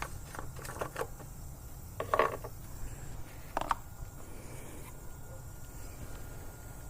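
A few light clicks, then two short knocks about two and three and a half seconds in: handling of the oil fill cap and oil bottle while topping off the engine oil.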